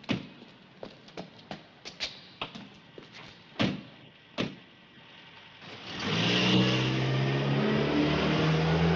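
A run of sharp, separate clicks and knocks, then about six seconds in a Renault 16's four-cylinder engine revs up loudly and keeps running as the car pulls away.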